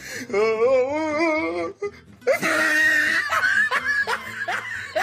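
Laughter and a drawn-out, wavering voice, a reaction to biting into a bouillon cube disguised as chocolate. A harsh, breathy outburst comes about halfway through.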